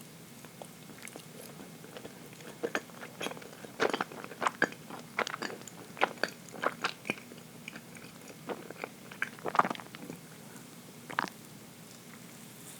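Close-miked chewing of dense chocolate cake: a run of irregular wet mouth clicks and soft crunches about two seconds in that thins out and stops with a last click near the end.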